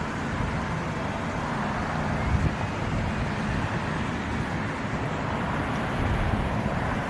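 City bus engine running steadily, a low rumble under a wide hiss.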